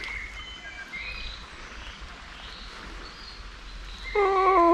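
Small birds chirping over a steady rushing background of river water. Near the end a short, loud pitched sound is held briefly and then drops steeply in pitch.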